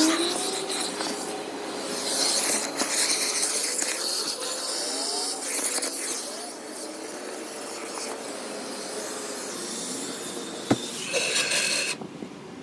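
Car wash vacuum hose with a long crevice nozzle sucking at a car's seat and floor carpet: a steady rushing hiss, with the nozzle rubbing and scraping on the fabric and a sharp click near the end.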